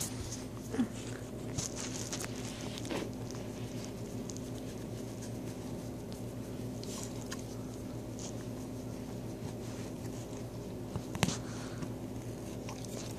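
Dog chewing and tugging at a plush toy: soft scattered mouthing and rustling, with a sharp click about a second in and a louder one near the end, over a steady low hum.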